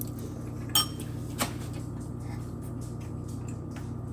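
Dishes and cutlery clinking at a meal, with one sharp ringing clink about a second in and a fainter one shortly after, over a steady low hum.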